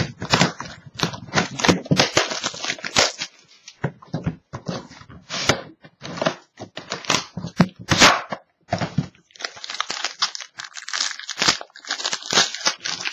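Sealed cardboard trading-card box being torn open at its seal stickers and slid apart, then the pack inside pulled out in its wrapper, giving a run of irregular ripping, scraping and crinkling noises.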